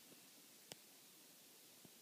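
Near silence: room tone, with one faint click about a third of the way in.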